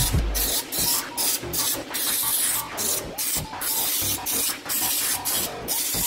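Pneumatic underbody-coating spray gun hissing in short repeated bursts, about two a second, as the trigger is pulsed to spray anti-rust coating onto the car's underside.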